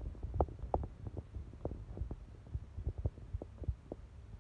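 Steady low hum of running aquarium equipment, with irregular soft low thumps, several a second.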